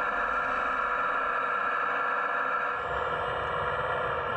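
Steady whine of a 1/14-scale RC hydraulic excavator's electric-driven hydraulic pump running, several fixed pitches held without change. About three seconds in a low rumble joins it.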